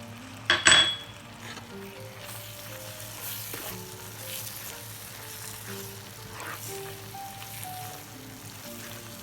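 Spice masala frying in oil and vinegar in a pan, sizzling steadily as it is stirred. There is a loud metallic clink about half a second in.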